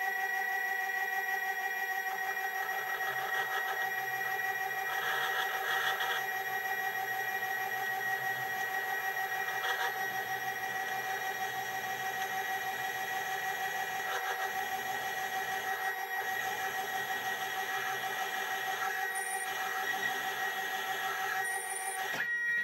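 Stepper motor of a CNC rotary axis driving a four-jaw chuck at about 380 RPM as a micro lathe: a steady, high-pitched whine of several tones, with scraping from a 6.5 mm twist drill boring dry into the spinning metal rod. Near the end the whine changes abruptly as the stepper stalls, overloaded by too fast a drill feed.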